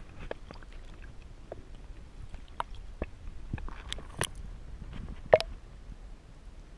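Underwater sound heard through a submerged camera: a low rumble with scattered faint clicks and ticks, and one sharper click a little after five seconds in.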